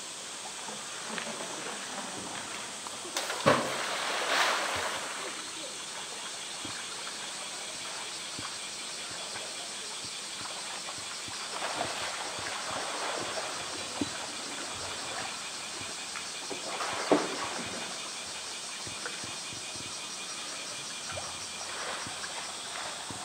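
Polar bear splashing into and swimming in a pool: short bursts of splashing a few seconds in, about halfway and again later, over a steady high hiss.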